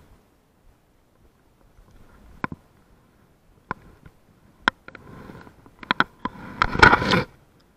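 Sharp clicks and knocks from handling the fly rod and line, then about a second of loud splashing and thrashing near the end as a small hooked fish is drawn in to the edge of the shallows.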